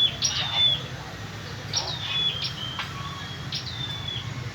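A small songbird repeating the same call about five times: a quick high note sweeping down into a short held whistle that steps down at its end. A steady low background rumble runs underneath.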